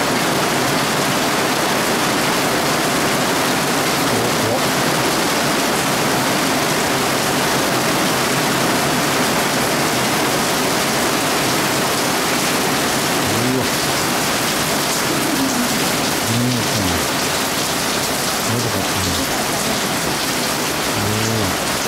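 Heavy rain from a sudden thunderstorm, pouring steadily as an even hiss with no let-up.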